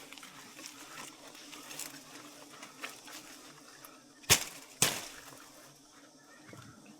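Faint steady hum of honey bees, with scattered small clicks and two sharp knocks about half a second apart a little past the middle.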